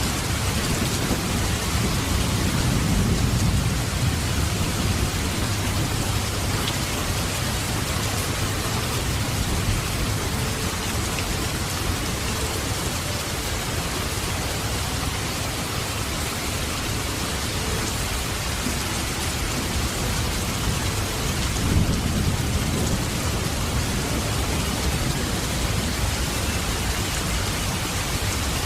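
Heavy rain pouring down steadily as a dense, even hiss, with low rumbling swells about three seconds in and again past twenty seconds.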